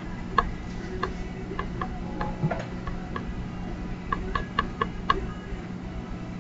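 About a dozen light clicks at uneven intervals, bunched near the end, over a steady low hum.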